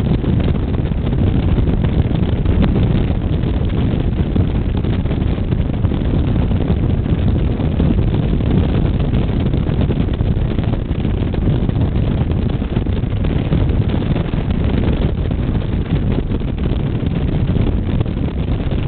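Motorcycle riding at a steady speed: a continuous low rumble of wind buffeting the microphone over the engine and road noise.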